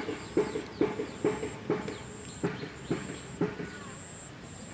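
Hands rolling soft chhena (fresh curd cheese) balls between the palms: soft rhythmic pats a little over twice a second, stopping about three and a half seconds in.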